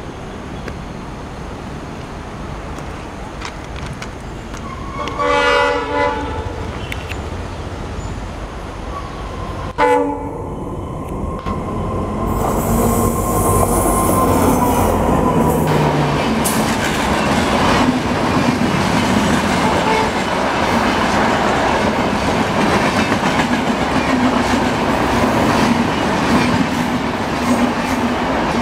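WDP-4 (EMD GT46PAC) diesel locomotive approaching: one horn blast about five seconds in and a shorter one near ten seconds. Its EMD two-stroke engine then passes close, followed by LHB coaches rolling past with loud wheel and track noise.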